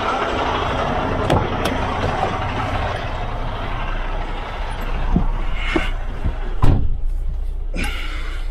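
Diesel semi-tractor idling with a steady low hum and open-air noise, while the driver climbs up into the cab. Several knocks follow in the second half, the loudest about two-thirds of the way through as the cab door shuts, and the outside noise then drops away.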